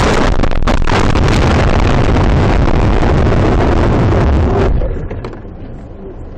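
A car crash heard from inside the car: a loud continuous rush of crunching and scraping, with sharp knocks about half a second in, which cuts off abruptly about four and a half seconds in, leaving a few faint knocks.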